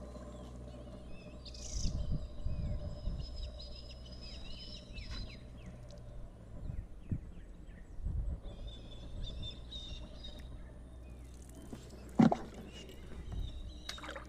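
Birds chirping and calling, many short chirps and whistles, over low rumbles, with one sharp knock about twelve seconds in.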